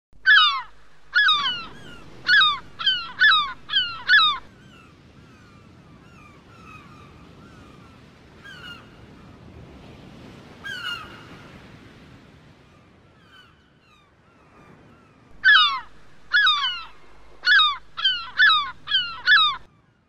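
Gulls calling: a quick series of about seven loud calls in the first four seconds, scattered fainter calls through the middle, then another series of about eight near the end.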